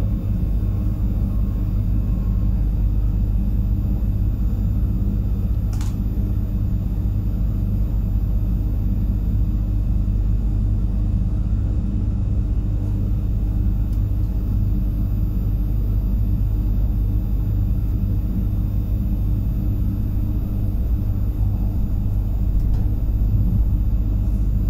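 Pesa Elf electric multiple unit running along the line, heard from inside the train: a steady low rumble with an even hum over it. There is a single sharp click about six seconds in.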